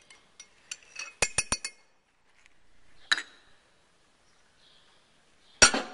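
Metal spoon clinking against a glass measuring cup while stirring soft-plastic bait mix that is not yet fully melted: a few light clinks, then three quick sharp ones about a second and a half in and a single one around three seconds. A louder knock near the end.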